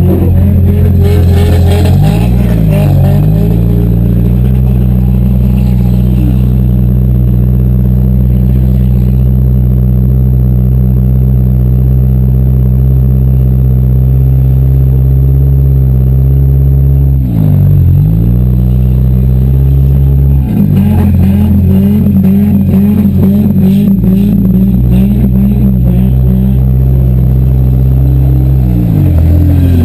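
Demolition derby car's engine running loud and hard, its pitch sagging and climbing back several times as the throttle is let off and pressed again: about two seconds in, twice around the middle, and near the end.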